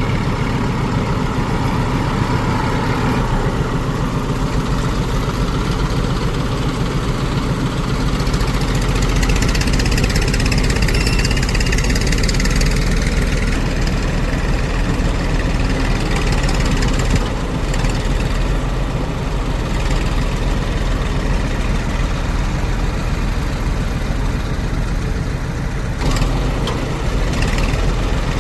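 Heavy diesel engine of a tractor or backhoe loader running steadily, its low throb growing heavier about eight seconds in.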